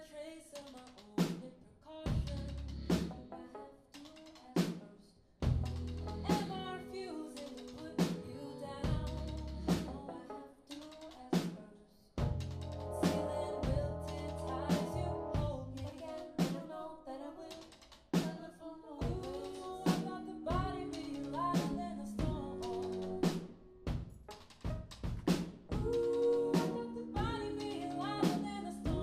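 Live indie rock band playing, with the drum kit's kick and snare hits leading over sustained keyboard and guitar notes.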